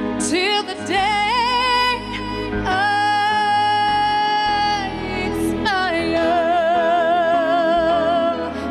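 A woman singing a slow ballad over instrumental accompaniment: a sliding phrase, a long held note, then a downward slide into another long note with wide vibrato.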